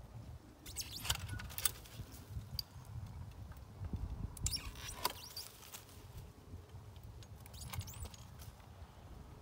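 Long-handled bypass loppers snipping through thin branches of a bare stone-fruit tree: several sharp snips and cracks spread through, the clearest about a second in and around five seconds.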